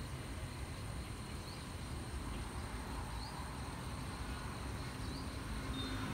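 Outdoor background: a steady high-pitched insect drone with a few faint short chirps over a low rumble.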